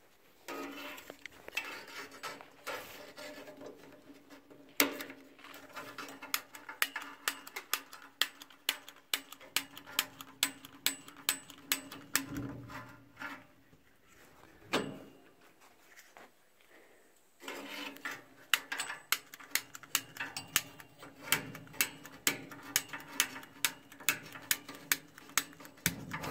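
An old utility lighter, out of fuel and used only for its spark, clicking repeatedly at about two clicks a second to light a propane gas grill's burner. The clicks come in two runs with a pause and a single knock between them, and the burner has not yet caught.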